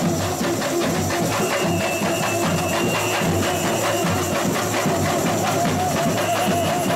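Samba school bateria (percussion section) playing a steady, dense samba rhythm, with tamborims among the drums and a deep drum pulse underneath.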